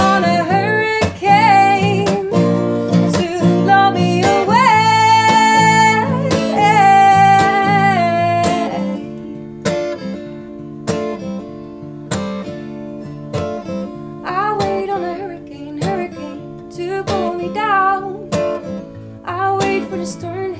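A woman singing with acoustic guitar in a live performance. She holds loud, high notes with vibrato over strummed guitar, then about eight seconds in the music drops back to quieter guitar and softer singing.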